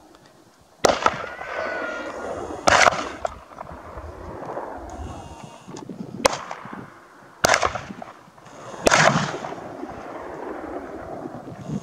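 Five shotgun shots fired at a running herd of wild boar, irregularly spaced over about eight seconds, each followed by a brief echo.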